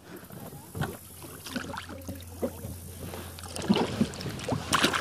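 Plastic kayak knocking and scraping with water splashing around it as a person clambers out of it awkwardly in shallow water: irregular knocks, busiest near the end.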